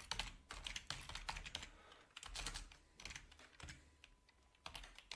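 Faint computer keyboard typing in short runs of quick keystrokes, with brief pauses between them.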